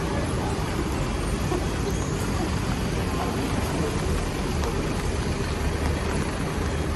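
Downtown road traffic: vehicles passing, a continuous low rumble with a hiss over it.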